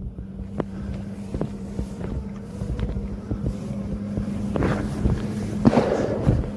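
FPV drone's electric motors buzzing steadily as it flies in, with wind on the microphone and a few sharp knocks of handling.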